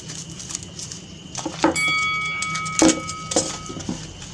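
Paper wrapping rustling, with knocks and clicks, as a wooden air-rifle buttstock is unwrapped and handled. Under it a ringing tone starts a little under two seconds in and fades away over about two seconds.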